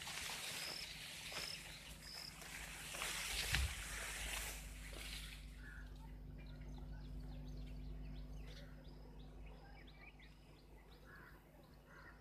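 Rural outdoor ambience: birds chirping in short high calls over a rushing noise that fades out about halfway through, with a single thump about three and a half seconds in.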